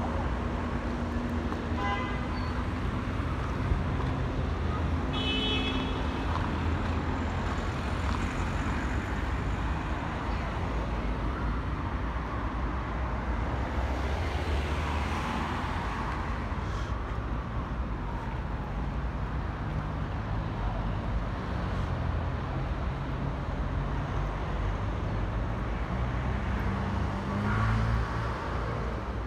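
Urban street ambience: a steady rumble of road traffic with vehicles passing, swelling about halfway through and again near the end. A brief high tone sounds about five seconds in.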